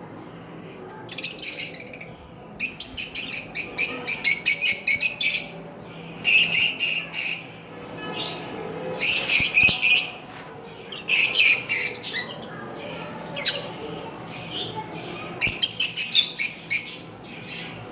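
Pet parrot squawking and chattering in repeated bouts of rapid, high, pulsed calls, each lasting a second or two, with short pauses between.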